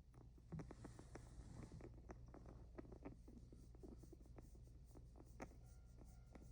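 Faint, irregular clicking from a sick guinea pig, several clicks a second over a low hum, with a brief hiss about a second in. These are the abnormal sounds it made while seriously ill, a warning sign: it died about six hours after they were noticed.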